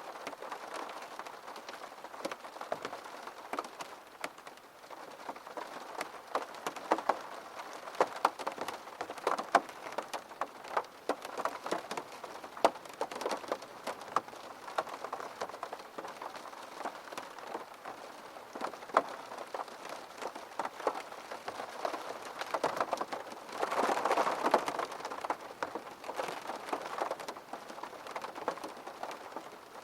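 Rain falling steadily, with many separate drops tapping sharply on a hard surface. About two-thirds of the way through it briefly grows heavier and louder for a couple of seconds.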